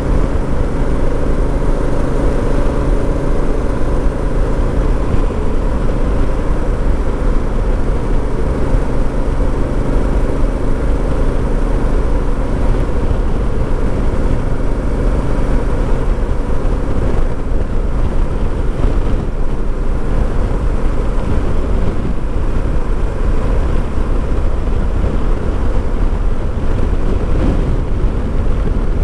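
Honda Africa Twin CRF1000L's parallel-twin engine running at a steady highway cruise, heard from the rider's seat with heavy wind rush on the microphone. The engine's steady hum is clearer in the first half, then becomes more buried under the wind.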